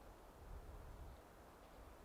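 Near silence: faint outdoor background with a low rumble, likely light wind on the microphone.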